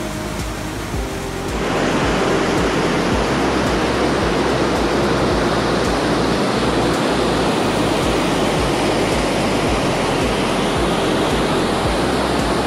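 White water of a mountain stream rushing down granite cascades: the Studený potok (Cold Creek) waterfalls. It is a steady, loud rush that grows louder and fuller about two seconds in.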